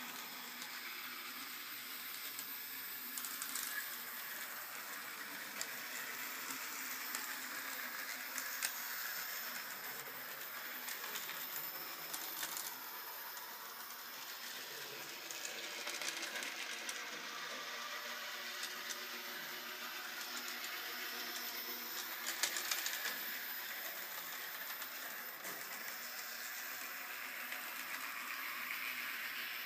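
H0-scale model of a Glasgow Coronation tram running along a layout, its small mechanism and wheels giving a light rattle with scattered sharp clicks over the track, against a steady hiss.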